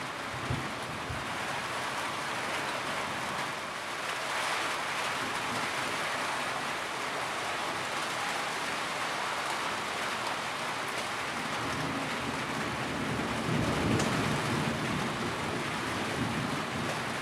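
Steady rain falling, with a brief low rumble of thunder near the start and a longer thunder rumble swelling up near the end.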